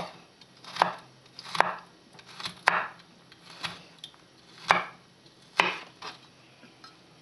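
Kitchen knife slicing a carrot into julienne strips on a wooden cutting board: about nine sharp knocks of the blade on the board, irregularly spaced roughly a second apart.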